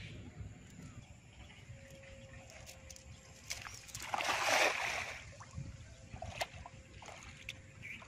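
River water splashing once, loudly, about four seconds in, with smaller sloshes and a few light knocks around it and a low rumble underneath.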